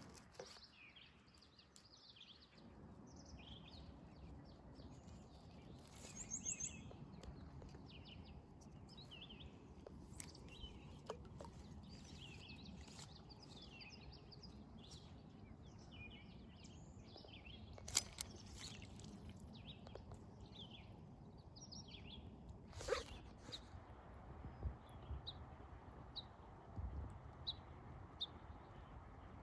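Faint outdoor ambience of several small birds chirping and singing in short trills, over a low steady background hum. Two sharp clicks stand out in the second half.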